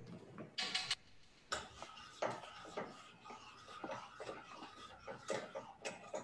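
Water at a rolling boil in a stainless steel pot of cooking gnocchi, bubbling with irregular pops and crackles, heard through a video call's compressed audio.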